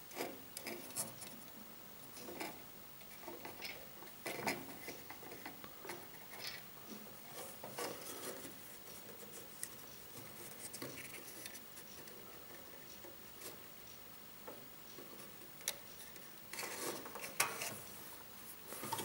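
Small wire-mesh live-catch mouse trap being handled on a wooden table: scattered light metallic clicks, rattles and rubbing from the wire cage and its spring-loaded door, with a busier cluster about three-quarters of the way through.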